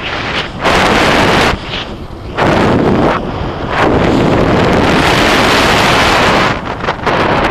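Wind buffeting the camera microphone as a mountain bike speeds downhill on asphalt. It comes in loud gusts that rise and drop every second or so, with one longer blast through the middle.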